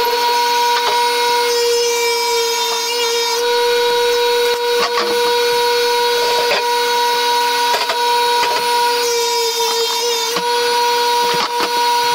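Table saw running with a steady whine, with scattered knocks and clicks from plywood being handled on it.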